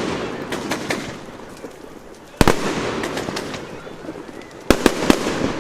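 Fireworks going off: a single loud bang about two and a half seconds in with a crackling, fading tail, then three quick bangs near the end, with scattered small crackles between them.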